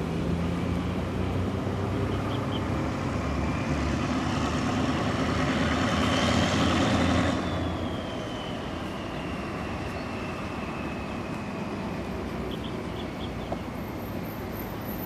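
Hitachi 8FA-36C diesel-electric locomotive running as it draws a container train slowly forward, its engine noise growing louder until about halfway and then dropping suddenly. After the drop a thin, high squeal slowly falls in pitch over several seconds.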